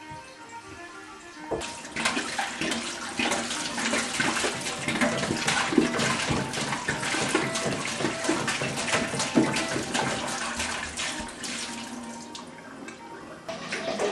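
Water being poured and splashing into a container. It starts about a second and a half in, eases off briefly near the end, then picks up again.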